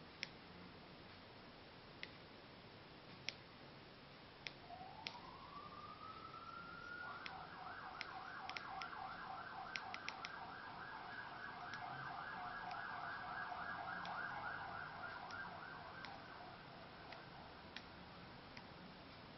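A siren, faint: its pitch rises steadily, then it warbles rapidly for about ten seconds before fading away. Scattered sharp clicks sound throughout.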